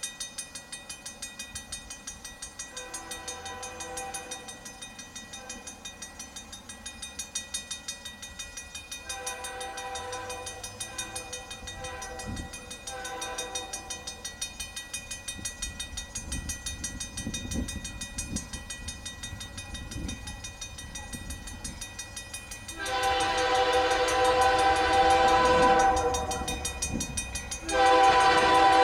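Horn of CN 2514's diesel locomotive sounding a series of blasts for the grade crossing, faint at first and much louder from about two-thirds of the way in as the train nears. A grade-crossing bell rings steadily throughout, and the low rumble of the approaching train builds.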